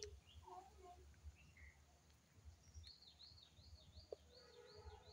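A small animal's faint, high chirping calls: a few scattered chirps, then from a little past halfway a run of quick arched chirps at about two or three a second.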